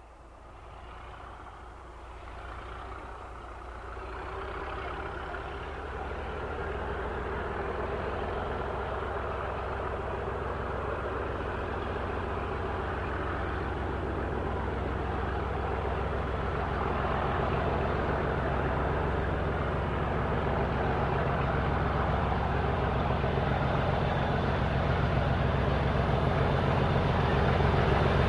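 Model OO gauge diesel locomotive train running with a steady diesel engine drone, growing louder as it approaches and draws alongside with its tank wagons.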